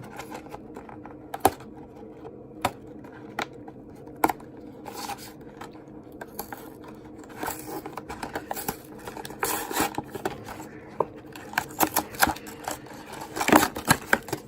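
Cardboard trading-card boxes and plastic packaging being handled and opened by hand: scattered clicks and taps, then a denser run of rustling and crinkling in the second half, over a faint steady hum.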